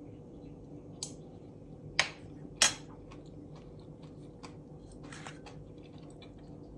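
A spoon clicking against a metal salad bowl as salad is scooped up to taste for salt: three sharp clicks in the first three seconds, the last two loudest, then fainter ticks, over a low steady hum.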